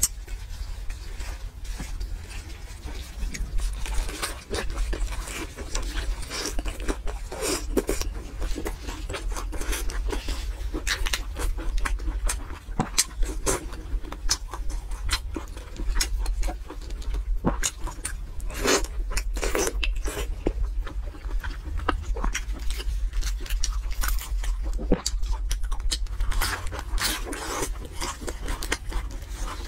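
Close-miked eating sounds: crunching bites and chewing of a golden fried roll, with hands tearing braised pork, heard as many sharp crackles throughout.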